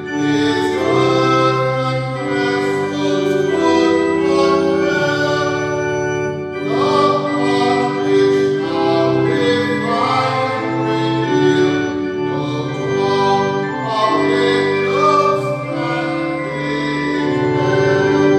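A hymn sung by voices over long, sustained organ chords, with the melody moving from note to note at a slow pace.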